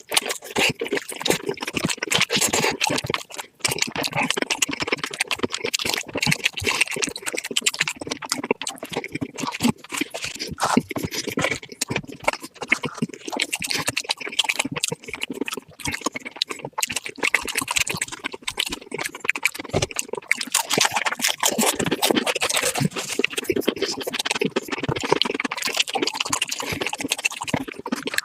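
Close-miked eating sounds sped up about four times: a dense, unbroken run of fast crunching, chewing and mouth clicks.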